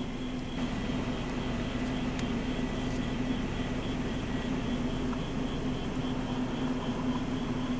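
Steady mechanical hum with a constant low tone and a faint high whine, unchanging throughout.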